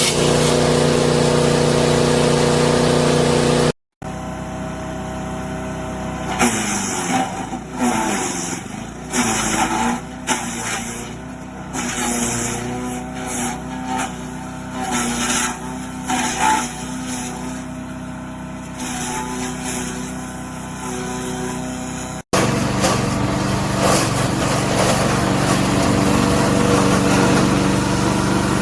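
SuperHandy mini wood chipper shredder's 7 HP gas engine running steadily. About 4 seconds in it cuts to a quieter stretch of the engine running with irregular crackles over it, and about 22 seconds in it cuts back to the louder steady running.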